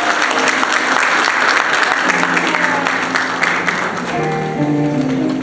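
Audience applauding, thinning out after about three seconds, as music comes in underneath with held low chords starting about two seconds in and more notes entering near the end.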